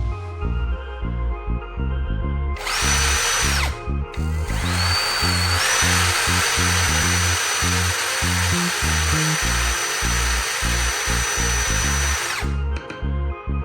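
An electric power tool motor spinning up with a high whine and running for about a second, then started again, rising in pitch and running steadily for about eight seconds before it stops. Background music plays throughout.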